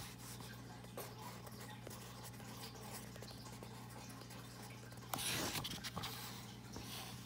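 Pen writing on a lined notebook page: faint scratching strokes. About five seconds in comes a brief, louder rustle of handling. A steady low hum runs underneath.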